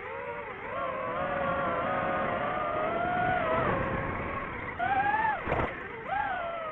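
DJI FPV drone's motors and propellers whining, the pitch rising and falling as the throttle changes. About five seconds in the whine jumps up and swoops down, with a short burst of noise.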